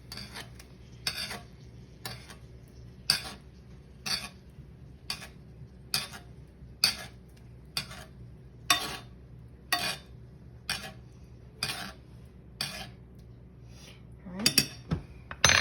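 Metal spoon clinking against a pan about once a second while basting a steak with melted butter.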